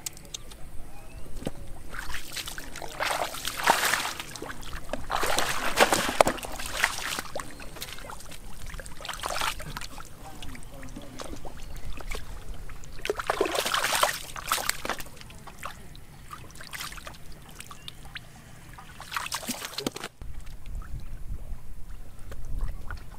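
Hands sloshing and splashing in shallow muddy water in several short bursts, groping through the mud for fish.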